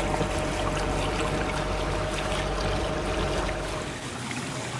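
Boat motoring slowly: a steady engine hum and tone under a hiss of moving water. The low rumble drops away near the end.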